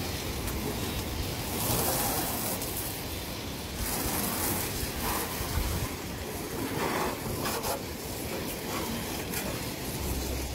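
Water running from a garden hose and spraying onto gravel: a steady hissing rush, with brief louder splashes now and then.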